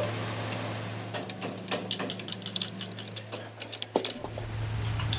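Steady low mechanical hum, with a quick run of sharp metallic clicks and ticks starting about a second in; the hum gets heavier about four seconds in.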